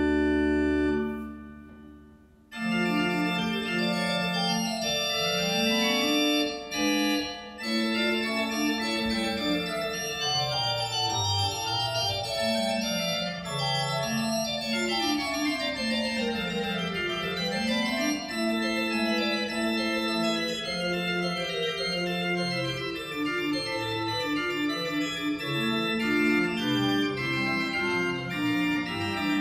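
A small pipe organ is played. A held chord ends and dies away, then about two and a half seconds in a lively piece begins, with quick running lines over a moving bass.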